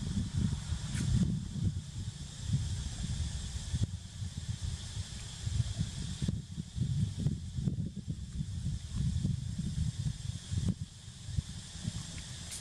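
Outdoor ambience: an uneven low rumble, like wind on the microphone, under a steady high hiss.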